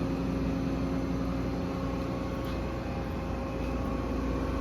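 Steady machine hum with a constant low tone and no change in level.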